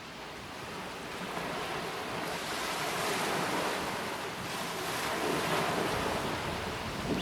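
Sea waves washing on the shore, a steady rushing that swells about three seconds in and again later, with wind rumbling on the microphone.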